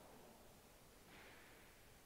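Near silence: faint background hiss, with a faint brief hiss about a second in.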